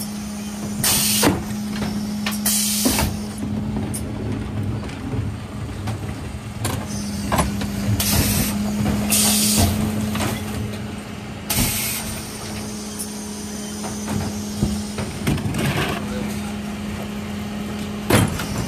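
Mercedes Econic refuse truck with a Faun Variopress body working its Zoeller bin lifters to tip wheelie bins: a steady hydraulic hum runs throughout, broken by several short hisses of air and clattering knocks as the bins tip and drop back.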